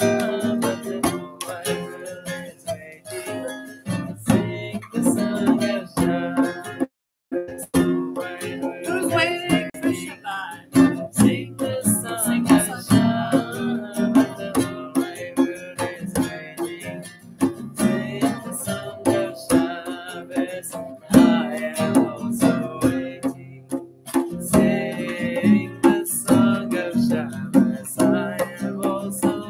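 Acoustic guitar strummed in a steady rhythm, with a djembe struck by hand and voices singing along.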